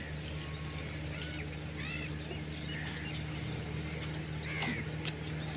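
A few faint, short bird chirps over a steady low hum.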